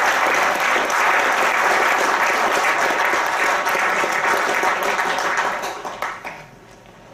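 Audience applauding after a speech, the clapping dying away about six seconds in.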